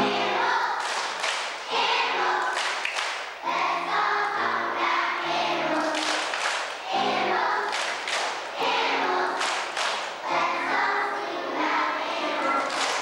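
Voices singing a song together, in short phrases of held notes with crisp consonants between them.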